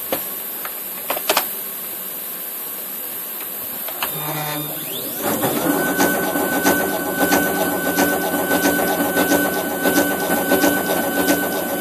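Hobby CNC milling machine's axis drive motors moving the table to a new measuring point: a short rising whine about four seconds in, then from about five seconds a steady, high-pitched motor whine with a buzzing rattle and irregular ticks.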